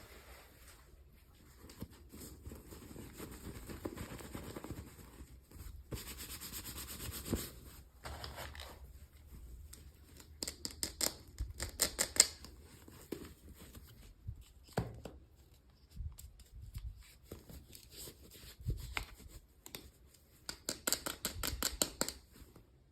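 Toy packaging being handled and opened by hand: rustling and scraping, with two stretches of rapid crackling, one midway and one near the end.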